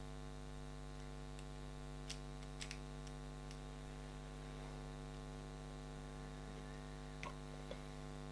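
Steady electrical mains hum, with a few faint small clicks and taps from plastic RC car suspension parts being handled, about two seconds in and again near the end.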